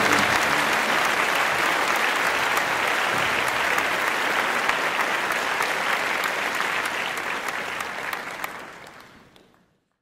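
Audience applauding with steady, dense clapping that fades out near the end.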